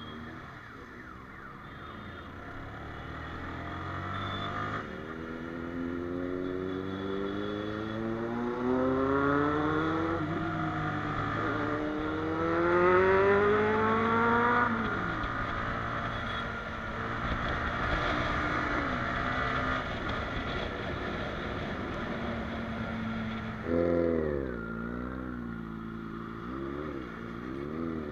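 Motorcycle engine pulling through the gears on the move: its pitch climbs for several seconds, drops about ten seconds in and again at fifteen, holds steadier for a while, then drops and climbs again near the end.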